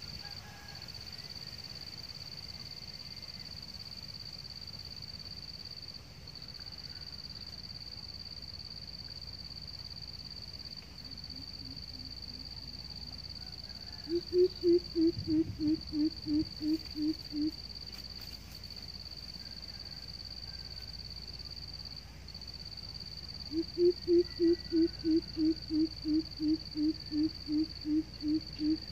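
Greater coucal giving its deep, evenly spaced hooting call: a run of about ten hoots, slightly falling in pitch, about halfway through, and a longer run near the end. Fainter low hoots come shortly before the first run. A steady high-pitched insect drone runs underneath.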